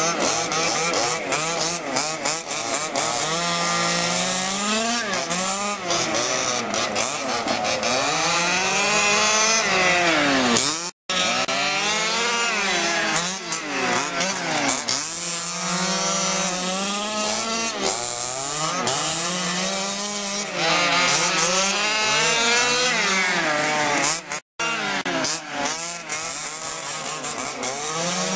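Small two-stroke gasoline engines of 1/5th scale HPI Baja RC cars racing, revving up and easing off again and again as they lap, with more than one engine running at once at different pitches. The sound drops out for an instant twice.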